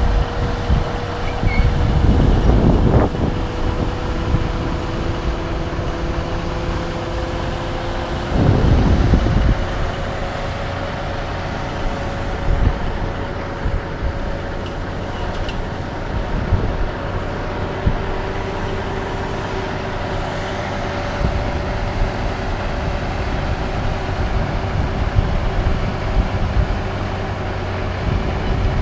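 Cat log loader working at a log truck: its diesel engine and hydraulics run as a steady drone with a faint whine above it. Two loud, low rumbles of about a second each come about two seconds in and again about eight and a half seconds in.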